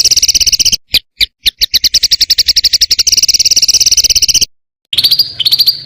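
Songbird giving a fast, harsh rattle of closely packed high notes, the rapid 'tembakan' calls used for training songbirds; it breaks off briefly about four and a half seconds in and resumes as a series of quick downward-sweeping notes.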